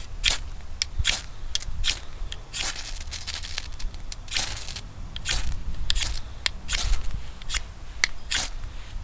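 A ferrocerium rod scraped against a knife's spine to throw sparks: a dozen or more sharp, rasping strikes at an uneven pace, a few of them longer drawn-out scrapes.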